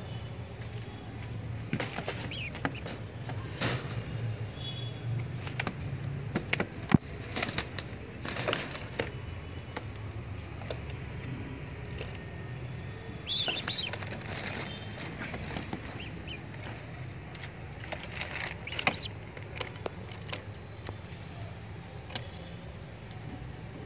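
Domestic pigeons flapping and shifting about, making irregular wing rustles and light taps, with one louder flurry of wingbeats about halfway through. A low steady hum runs underneath.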